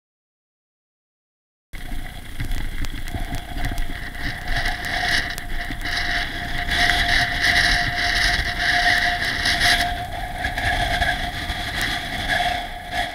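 Mountain bike riding over dirt singletrack: wind rushing over the microphone and the bike rattling over the bumps, with a steady whine. It cuts in suddenly about two seconds in, after silence.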